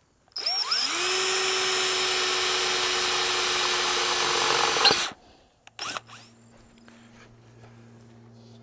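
DeWalt cordless drill spinning up and boring a small relief hole through the flange of a 160-degree car thermostat, running at a steady pitch for about four and a half seconds before stopping abruptly.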